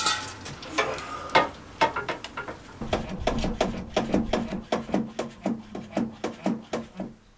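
Ratchet clicking rapidly, about five clicks a second, after a few irregular knocks and rustles in the first two seconds.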